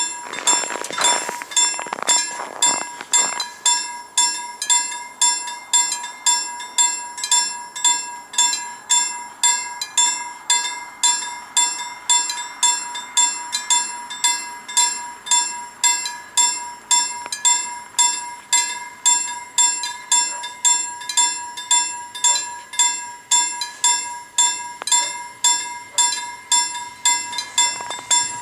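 Level-crossing warning bell ringing steadily, about one and a half strikes a second, as the crossing's signal that a train is coming. A brief rushing noise sounds over it in the first few seconds.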